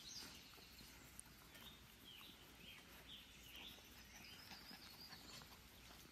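Near silence with faint bird chirps, a run of short calls through the middle.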